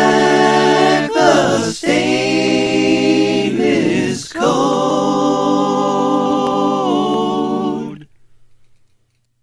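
A cappella vocal intro jingle: held sung notes in three phrases with short breaks between them, ending about eight seconds in.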